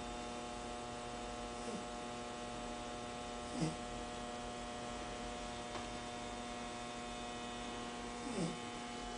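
Beagle puppy snoring in its sleep: three short snores that fall in pitch, the clearest a few seconds in, over a steady electrical hum.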